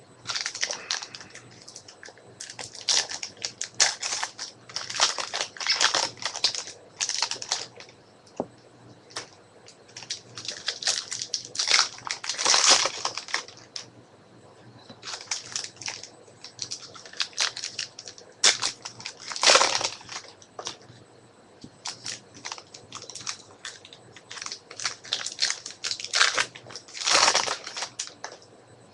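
Foil trading-card pack wrappers crinkling and being torn open, with cards handled and shuffled, in irregular rustling bursts; louder crackles come near the middle and near the end.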